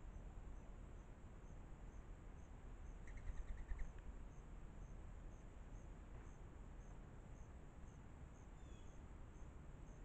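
Cricket chirping steadily, high-pitched, about three chirps a second, over a low outdoor rumble. About three seconds in, a short rapid run of about six pulses is the loudest sound, and faint bird chirps come near the end.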